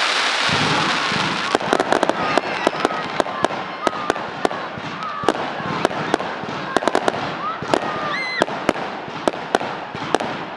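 Fireworks display: a dense crackling at first, then from about a second and a half in a quick run of sharp bangs, several a second, with a rising whistle about eight seconds in.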